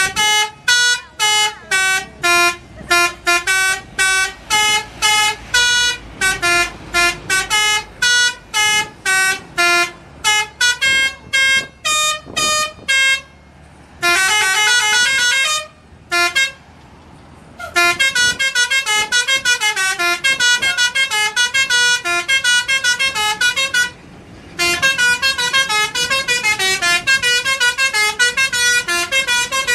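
Bus 'telolet' multi-tone horn playing tunes: a long string of short hooted notes, a held chord about halfway through, then fast rippling runs of notes broken by two short pauses.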